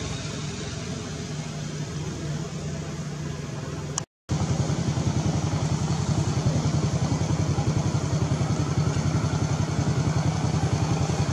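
A small engine running steadily, with a fast, even low pulse. The sound drops out completely for a moment about four seconds in, then returns louder.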